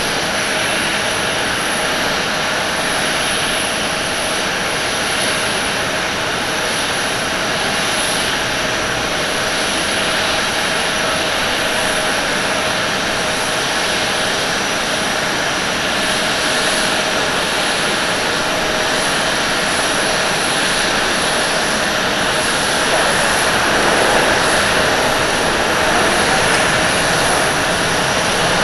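Jet engines of a Boeing 777-300ER, its GE90-115B turbofans, running as the airliner lands and rolls out: a steady, loud jet noise with a constant whine through it, growing a little louder over the last few seconds.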